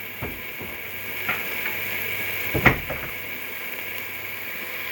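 A pot of tomato stew sizzling steadily, with three knocks of a cooking spoon against the pot. The sharpest knock comes about two and a half seconds in.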